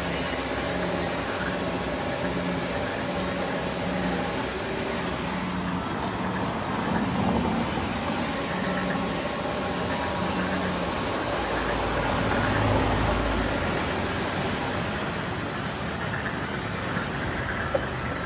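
Sawmill band saw running steadily while wide wooden planks are fed through its blade, with a repeating hum. A low rumble swells briefly about twelve seconds in.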